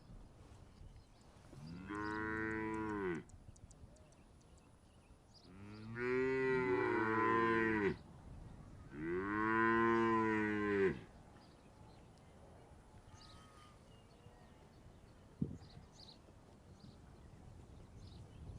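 Cattle mooing: three long moos, starting about two, six and nine seconds in, each rising and then falling in pitch. A single sharp click comes about fifteen seconds in.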